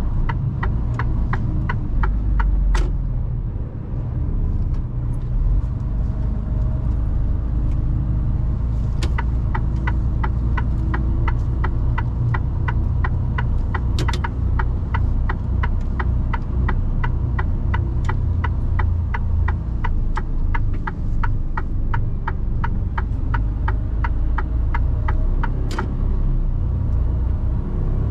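Mercedes Actros truck's diesel engine and road rumble heard from inside the cab, with the turn indicator ticking at about two clicks a second, briefly at the start and again for a long stretch from about nine seconds in until near the end.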